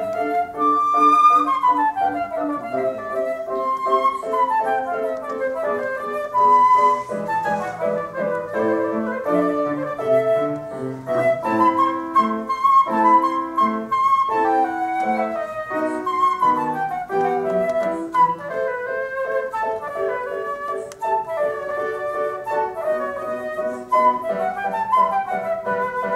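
Concert flute playing a classical melody with quick scale runs up and down, accompanied by a grand piano.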